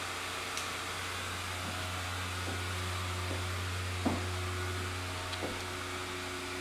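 Built-in blower fan of an inflatable Halloween decoration running steadily with a low hum, keeping the figure inflated. A few faint knocks, the clearest about four seconds in.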